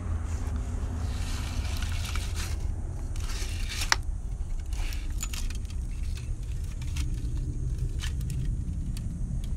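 Cast metal pieces and a ceramic shell mold handled in a bucket of sand: scattered metallic clinks and scrapes, with one sharp click about four seconds in. A steady low rumble runs underneath.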